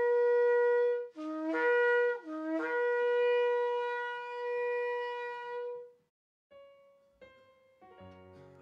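Shofar (ram's horn) blown: a long held blast, then a short run of broken notes stepping between a lower and a higher pitch, then a second long blast that ends about six seconds in. Soft keyboard notes begin near the end.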